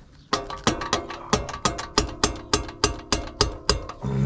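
Hammer blows on the steel lower control arm of a VW Sharan, about three a second, each strike ringing, driving the tight-fitting arm into its mount.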